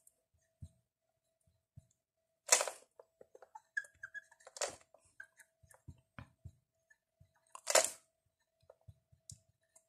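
Felt-tip marker writing on a whiteboard: three short scratchy strokes are the loudest sounds, with a brief squeak a few seconds in and soft knocks of the hand and marker against the board.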